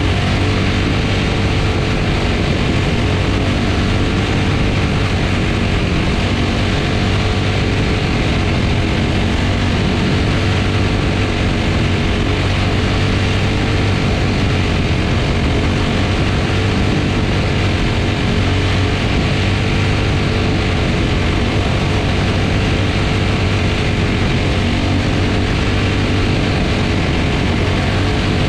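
Quarter midget's Briggs & Stratton Animal single-cylinder engine running hard at racing speed, heard close up on board; a steady, loud drone whose pitch wavers only slightly as the car goes around the oval.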